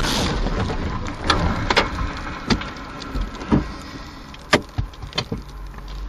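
The noise of a vehicle crash dying away in the first moment, then scattered sharp knocks and rattles over a low rumble inside the crashed vehicle, getting quieter.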